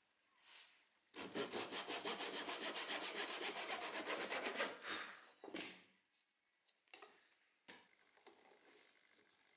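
Japanese pull saw cutting across a thin hardwood strip in quick, even strokes, starting about a second in and running for about four seconds, with a couple of slower strokes as the cut finishes. A few light wooden knocks follow near the end.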